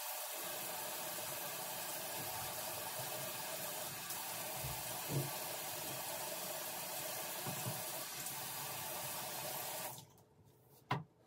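Water running steadily in a bathroom, an even hiss that cuts off suddenly about ten seconds in, followed by a single sharp click.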